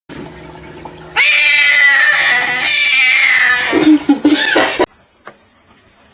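A cat yowling: one long, drawn-out wail of about two and a half seconds, then a few shorter cries, cutting off suddenly.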